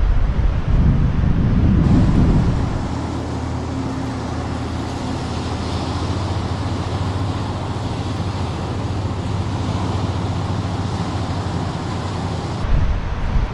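Strong wind buffeting the microphone for about the first two seconds, then a steady low drone with an even hiss over it that holds until near the end, when the gusting wind noise returns.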